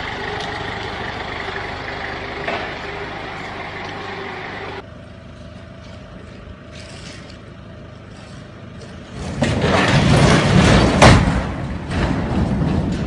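Loud crash and clatter of a semi-trailer's box body toppling off the trailer onto the ground, starting about nine seconds in and loudest around eleven seconds. Before it, quieter steady machine noise.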